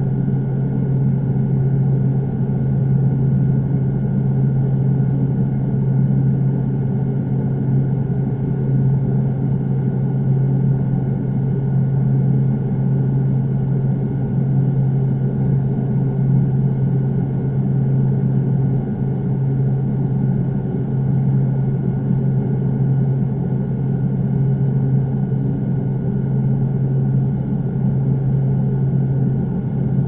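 A steady low hum with one strong low tone and fainter higher tones, unchanging in level or pitch.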